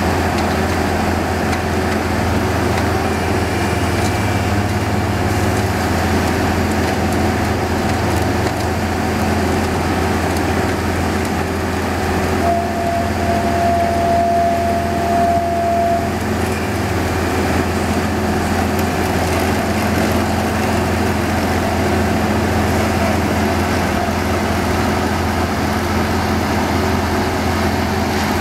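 Heavy construction machinery engines from a concrete boom pump and screeding machines, running steadily in a continuous low drone. A single steady tone sounds for a few seconds midway.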